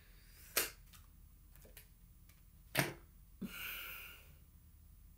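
Tarot cards being handled and set down: two sharp taps, about half a second and nearly three seconds in, with a fainter tap between, then a soft hissing rustle a little after three and a half seconds.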